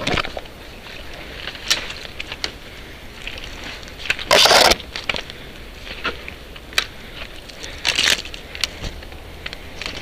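Footsteps through dry forest debris, with irregular cracks and crunches of snapping twigs and branches brushing past. A louder scraping rush comes about four and a half seconds in, and a smaller one near the end.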